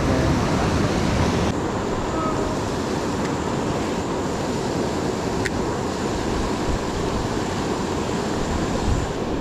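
Steady rushing of river water flowing fast over rocks.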